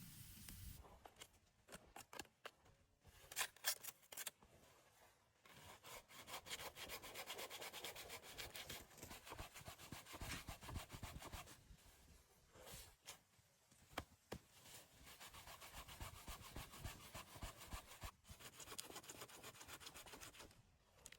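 Faint sound of wood being worked with a hand tool: fast, even rasping strokes in two long spells with a short break between them, after a few knocks near the start.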